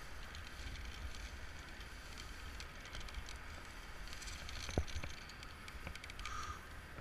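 Steady wind rumble and rubbing noise on a body-mounted action camera during a rappel down a building, with a few sharp knocks near the end.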